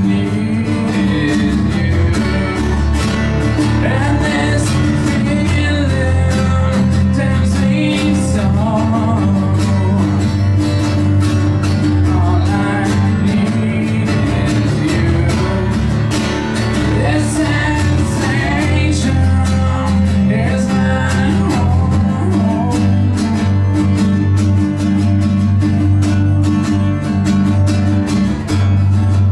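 A small band playing a song live on strummed acoustic guitars, with a steady low part underneath.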